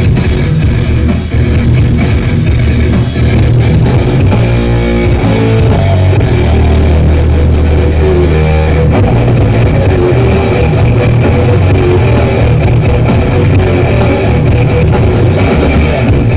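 Rock music with guitar, drums and heavy bass, played very loud through a carnival sound system.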